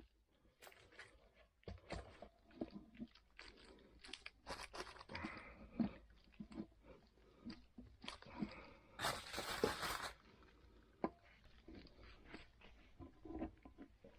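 A tire spoon prying a Ninebot Max G30 tubeless tire's bead off its rim: irregular scrapes, clicks and rubbery crunching. A louder scrape lasting about a second comes about nine seconds in.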